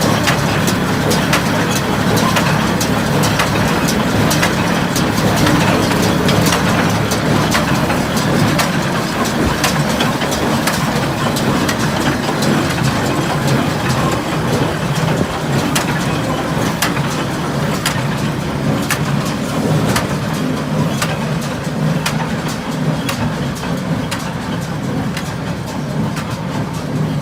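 International Harvester 430 square baler running under test, driven by a tractor: the steady hum of the tractor engine with a constant, fast clatter of sharp clicks from the baler's mechanism.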